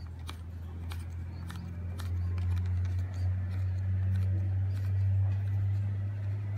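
Small scattered plastic clicks and rubbing as a bike phone holder mount is handled and fitted onto the handlebar stem, over a steady low hum that grows louder about two seconds in.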